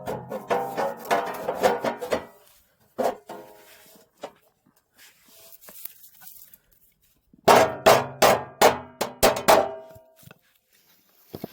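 Hammer blows on metal, each strike ringing. There are two quick runs of about three strikes a second, with a single blow between them.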